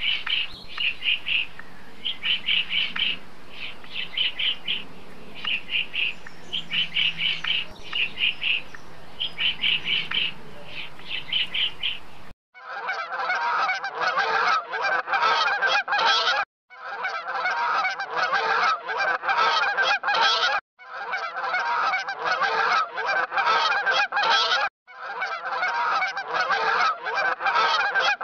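A bird calling in groups of short, high, repeated notes, then, after an abrupt cut about 12 seconds in, a dense chorus of waterfowl honking that breaks off briefly about every four seconds.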